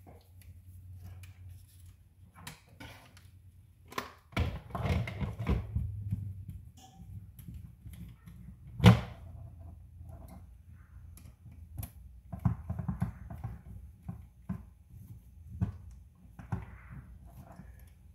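Hands working screws and parts on an RC car chassis with a hand tool: scattered clicks, taps and light knocks, with one loud sharp knock about halfway through.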